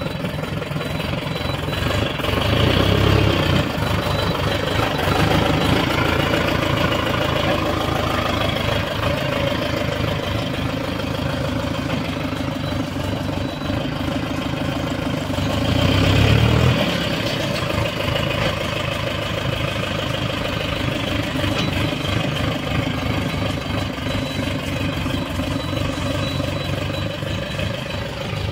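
Diesel engines of a Sonalika DI 60 4WD tractor and a Terex backhoe loader running together at close range. The engine noise swells louder twice, a few seconds in and again about halfway through.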